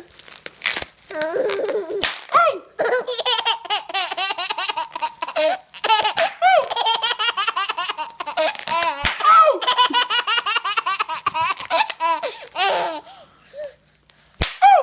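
Baby laughing hard in long runs of rapid, high-pitched belly laughs, with short breaks and sharp pops of bubble wrap between the runs.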